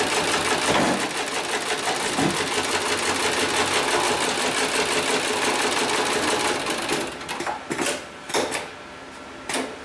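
HIGHTEX 7273CNC heavy-duty programmable pattern sewing machine stitching polyester lifting-sling webbing at high speed, a fast even clatter. The stitching stops about seven seconds in, followed by a few separate sharp clacks.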